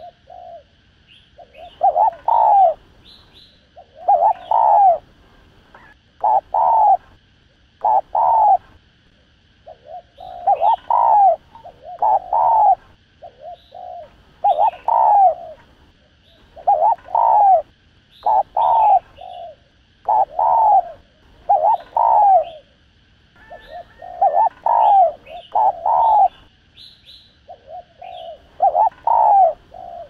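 Spotted dove cooing over and over in short groups of two or three low coos, one group about every two seconds. It is the excited repeated coo that Vietnamese keepers call "thúc gù", used to rouse other doves.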